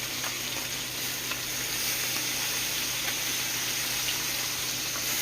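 Catfish fillet sizzling in melted butter in a frying pan: a steady hiss with scattered small pops, a little louder from about two seconds in.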